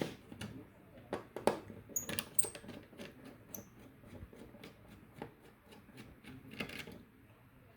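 Irregular metal clicks and clinks as a desktop computer's CPU heatsink and fan are worked loose and removed, with a few short high metallic pings in the first half.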